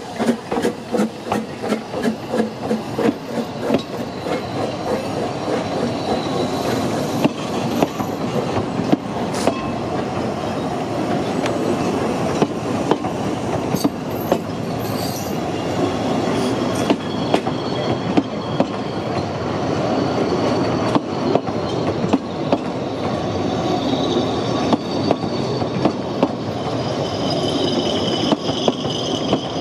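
Narrow-gauge Double Fairlie steam locomotive 'David Lloyd George' pulling away, its exhaust beats fading over the first few seconds. Its coaches then roll past close by, wheels clicking over the rail joints, with a high wheel squeal near the end.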